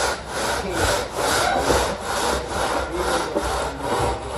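A straightedge being see-saw screeded across stiff fresh concrete, scraping back and forth in a steady rhythm of about three strokes a second.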